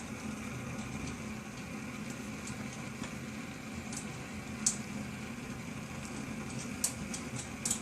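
A few light metallic clicks as bolts and wing nuts are fitted to a metal brick-support brace, over a steady low hum.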